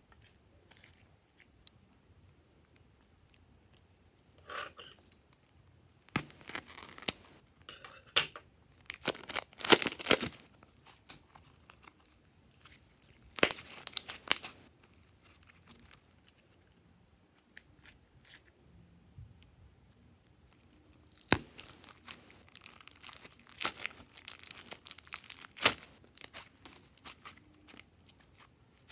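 Hands squishing, stretching and folding glossy slime, making sticky crackles and sharp pops in bursts with quiet gaps between; the busiest stretches come around ten seconds in and again a few seconds before the end.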